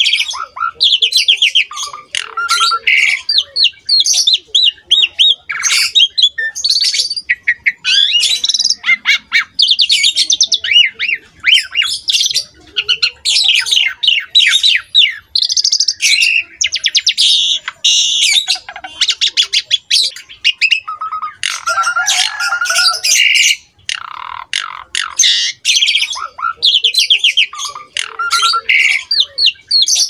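Jalak suren (Asian pied starling) in full song: a near-continuous run of fast chattering trills, squawks and whistled phrases with short breaks, and one lower, harsher phrase a little past the middle.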